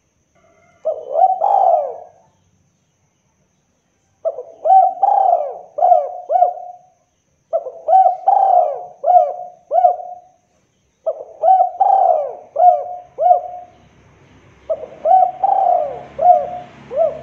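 Spotted dove (local derkuku) cooing in five phrases, each a run of quick rising-and-falling coos. The first phrase is short, about a second in, and four longer ones follow at roughly a second's gap. This is the call played as a lure recording to set silent caged derkuku cooing.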